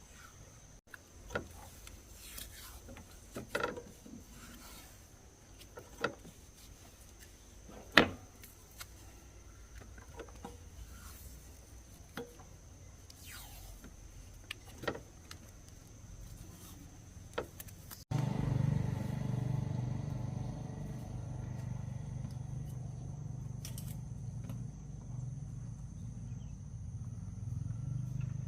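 Scattered light knocks and clinks of work on the machine, then, after a sudden cut about two-thirds through, a small 110cc motorcycle engine running steadily with a low rumble.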